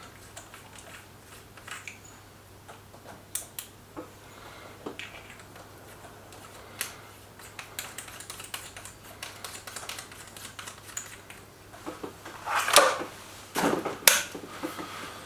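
Scattered light mechanical clicks and handling noises from an air rifle being adjusted and readied between shots, with two louder rasping handling sounds near the end.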